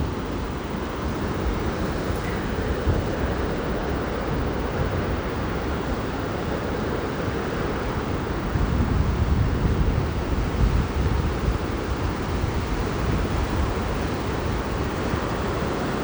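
Steady rushing noise of falling water, with wind buffeting the microphone in low rumbling gusts, strongest about halfway through.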